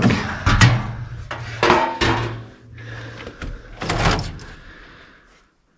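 Sheet-metal furnace access panel being handled and pulled off, giving a series of metallic clanks and scrapes, the loudest around the first two seconds and another near four seconds in.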